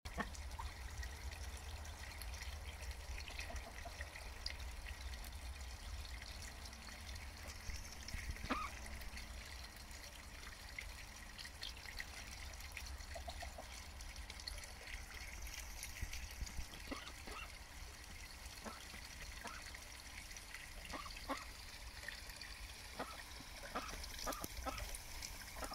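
Indian Runner duck dabbling, its bill sifting and splashing in shallow trickling water: faint wet slurps and small clicks, more of them near the end, over a steady low hum.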